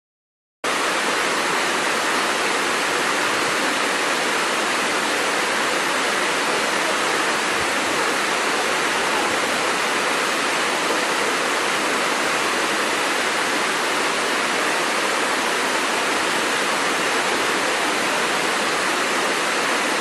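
Waterfall's steady rush of falling water, cutting in abruptly just under a second in, with little deep rumble.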